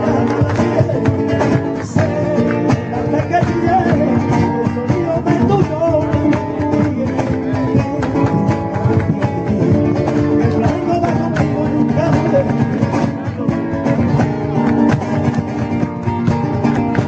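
Live flamenco music led by acoustic guitar, with sharp percussive strokes throughout.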